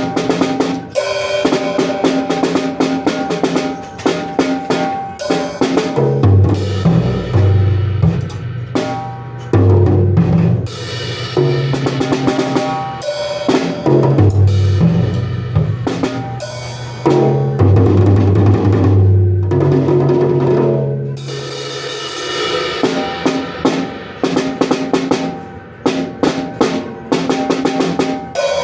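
Music dominated by a drum kit playing fast, busy snare and bass-drum patterns with rolls, over held low bass notes that change every second or two.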